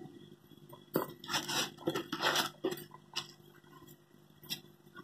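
Kitchenware knocking and scraping against a metal cooking pot while raw rice is emptied into it from a plastic bowl: several short scrapes and light knocks, quieter toward the end.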